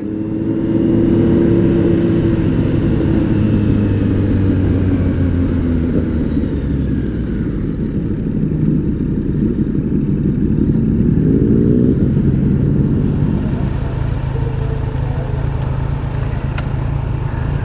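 Kawasaki Z900's inline-four engine heard from the rider's seat: its note falls as the bike slows down, rises briefly about eleven seconds in as it pulls away again, then settles into a low, steady run at low speed.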